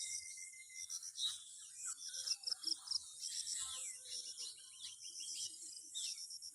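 Outdoor insect and bird chorus: insects chirping in a steady rapid pulse over a high, even hiss, with birds giving short chirps that sweep downward in pitch.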